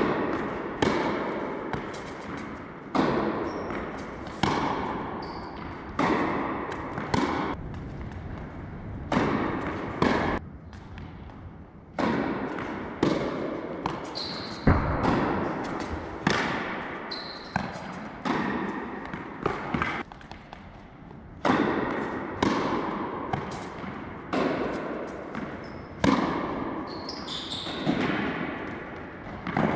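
Tennis rallies on an indoor court: racket strikes and ball bounces, a sharp hit every second or so, each echoing in the large hall, with a short lull between points.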